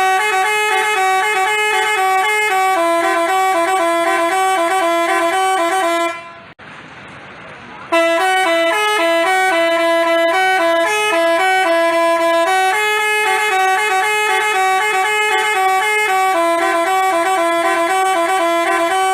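Basuri telolet musical bus horn, a multi-trumpet electric horn, playing a tune of quick stepping notes. It sounds in two runs, broken by a pause of about two seconds some six seconds in.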